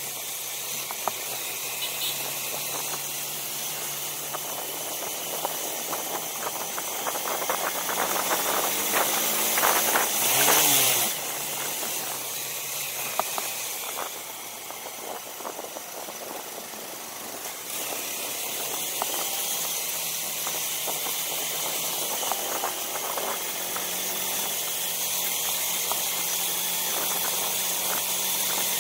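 Small hired motorbike engine running under way, with wind noise over the microphone and scattered clicks and knocks. About ten seconds in, a brief louder engine swell comes with its pitch rising and falling.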